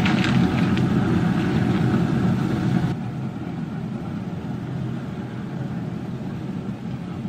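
A steady low mechanical rumble, like a motor or engine running, with a few light clicks near the start; it drops a little in level about three seconds in.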